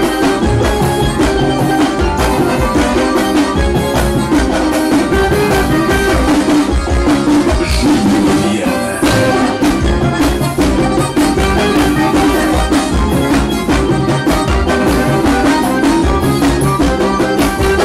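Loud amplified live band music with a steady drum beat.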